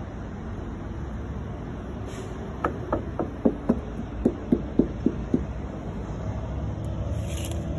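A quick run of about ten sharp knocks, roughly three a second, over a steady low rumble.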